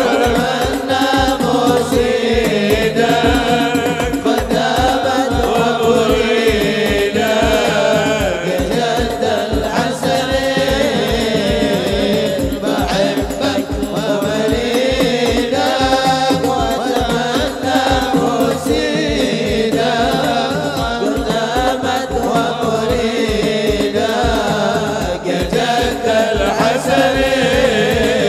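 Men singing a sholawat together into microphones through a sound system, accompanied by hadroh frame drums and bass drums beating a steady rhythm.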